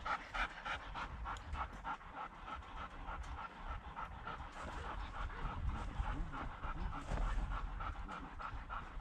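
Harnessed sled dogs panting quickly and steadily, about four to five pants a second.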